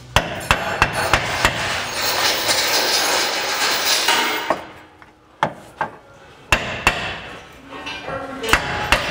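Hammer tapping a lower control arm to seat it and line up its bolt holes: a quick run of sharp metal strikes, then a couple of seconds of steady hissing noise, then more scattered strikes.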